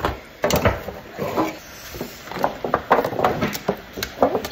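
Handling sounds of a gift box and a metal tin being handled on a counter: a run of short knocks and clicks with rubbing and light clatter between them.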